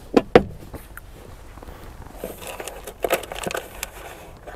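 Hands rummaging through loose small metal parts, cotter pins and the like, in a tractor's toolbox. Two sharp clicks come near the start, then scattered light clicks and rattling.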